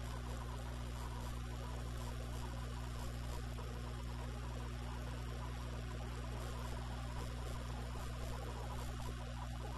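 Steady low ambient drone with a soft hiss, unchanging throughout: a calm soundtrack laid in place of the visitors' noise.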